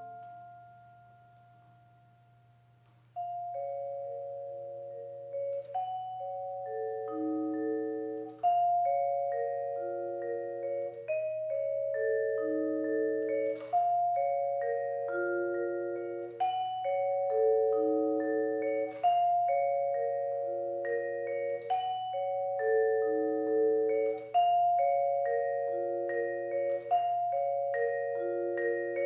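Yamaha vibraphone played solo with mallets. A held chord rings out and fades away over the first few seconds. About three seconds in, a steady repeating figure of long-ringing notes begins and cycles roughly every two and a half seconds.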